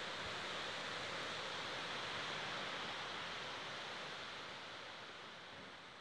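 Wind rushing through leaves and plants, a steady rustling hiss that fades away over the last couple of seconds.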